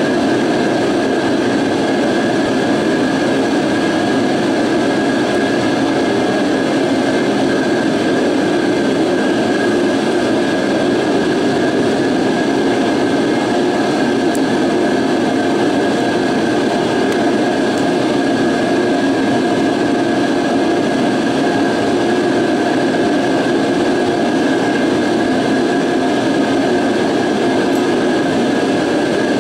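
Shop heater running: a steady, unchanging noise with a faint constant whine.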